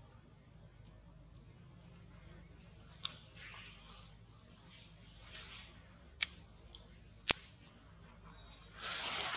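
Steady high-pitched drone of insects in the surrounding trees, broken by soft rustles, two sharp loud clicks a little past the middle, and a louder burst of rustling at the very end.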